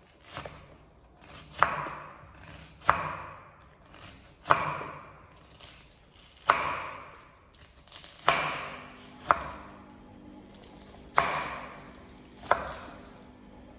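A kitchen knife slicing down through an onion and knocking on a cutting board: eight separate cuts, about one every one to two seconds.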